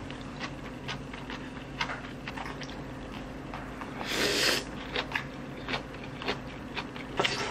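A person eating rice noodle soup: soft chewing and small clicks, then a loud slurp of noodles about four seconds in and a shorter one near the end.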